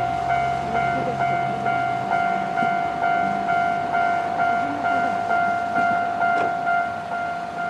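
Japanese level-crossing warning bell, the standard electronic alarm, ringing a steady clear tone that strikes again a little over twice a second.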